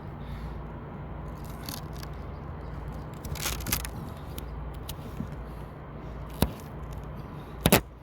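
Adhesive awning repair tape being pressed along the RV awning canvas and its backing handled: scattered scrapes and crackles, a sharp click, and the loudest crackle near the end, over a steady low hum.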